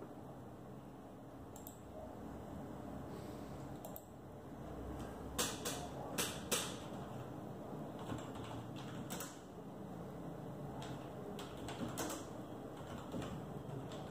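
Computer keyboard being typed on: scattered, uneven keystroke clicks, with three louder clacks about five and a half to six and a half seconds in.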